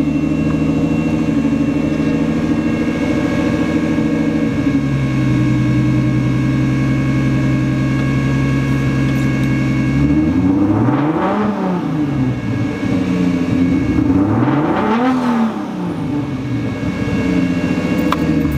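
Nissan RB25DET turbocharged inline-six running just after a start: its fast idle drops to a lower steady idle about four and a half seconds in. It is then revved briefly twice, each time rising and falling back to idle, heard from inside the car.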